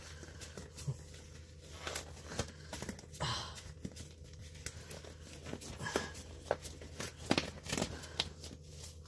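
Thin disposable gloves being pulled on and stretched over the hands: irregular soft crinkling and rustling with scattered light clicks, over a faint steady low hum.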